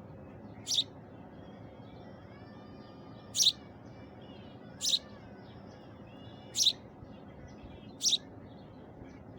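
A bird chirping, one short sharp call about every second and a half, five in all, with fainter calls of other birds between them.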